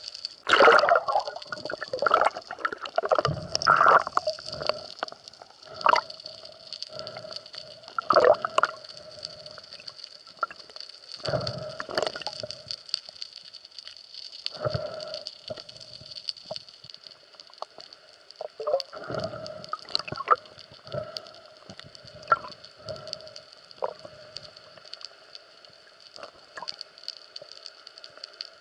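Underwater sound picked up by a camera in its housing during a spearfishing dive: gurgling and sloshing water with irregular knocks and bursts, over a faint steady hum.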